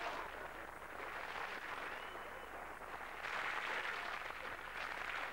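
Studio audience laughing, the laughter swelling again about three seconds in.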